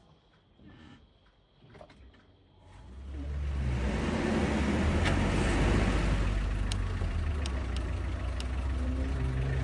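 A motor vehicle's engine comes up about three seconds in and keeps running loud and steady. A few sharp ticks sound over it near the end.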